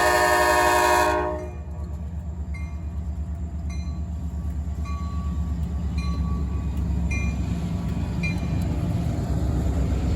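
Diesel locomotive air horn sounding a chord and cutting off about a second in, then the low, pulsing rumble of the idling EMD diesel engines of SD40-2 and SD9 locomotives, with faint short high pings now and then and the rumble growing a little louder near the end.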